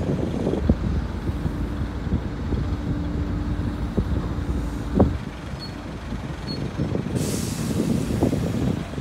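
Cargo crane's diesel and hoist machinery running with a steady low rumble as it lifts a loaded woodchip bin, with a low hum over the first half, a single clank about five seconds in, and a hiss of released air near the end.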